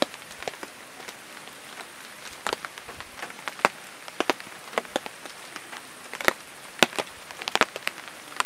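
Light rain falling: irregular sharp drips and taps over a steady soft hiss.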